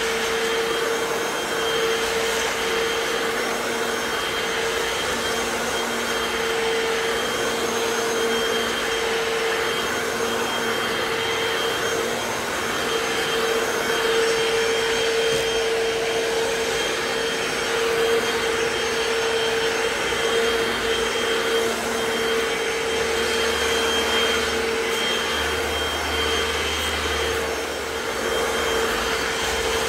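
Hoover FloorMate hard-floor wet cleaner running steadily as it is pushed over the floor: a constant motor hum with a high whine above it.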